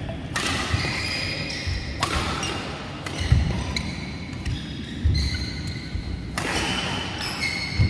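Badminton doubles rally: rackets striking the shuttlecock with sharp cracks, about three times, among squeaking court shoes and the thud of footsteps on the court mat.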